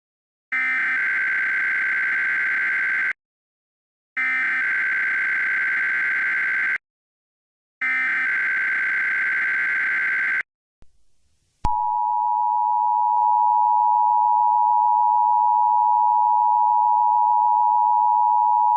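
Emergency Alert System SAME header: three bursts of digital data, each about two and a half seconds long with a second's gap between them. Then, after a short pause and a click, the steady two-tone EAS attention signal starts and holds, opening a Required Weekly Test.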